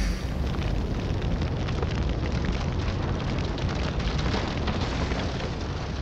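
Sound effect of a boulder rolling and tumbling down a rocky slope: a steady, dense rumble full of fine crackles.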